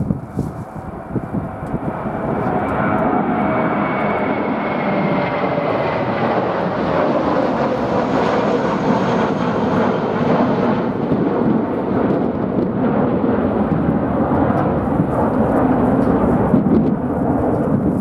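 Jet airliner flying past, its engine whine falling slowly in pitch as it goes by, under a heavy jet rumble that swells about two seconds in and holds. Gusty wind buffets the microphone at the start.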